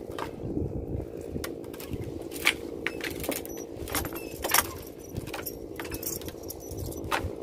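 A small engine running steadily, with irregular sharp clinks and clatters over it.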